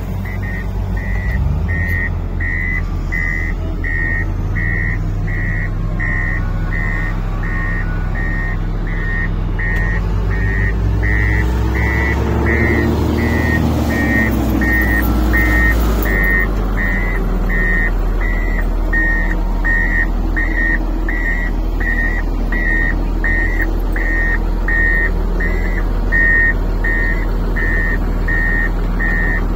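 Komatsu motor grader's diesel engine running, with its reversing alarm beeping steadily at about two beeps a second, the sign that the grader is in reverse. The engine works harder for several seconds around the middle.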